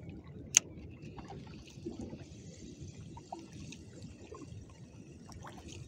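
Light water lapping and trickling against a small wooden boat's hull, with one sharp click about half a second in and a few faint ticks after it.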